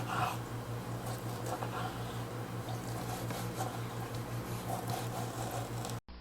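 Knife cutting raw, thawed chicken into cubes, with light irregular taps, over a steady electrical hum. The sound breaks off abruptly near the end.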